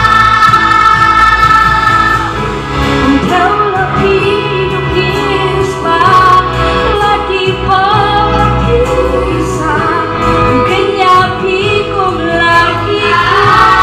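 Children's choir singing, a girl singing lead into a microphone over the group. Long held notes at the start give way to a moving melody, and held notes return near the end.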